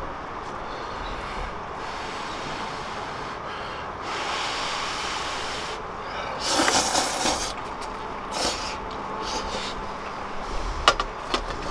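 Slurping ramen noodles from a frying pan: one long, loud, noisy slurp about six seconds in, with softer slurps around it. A few sharp clicks come near the end.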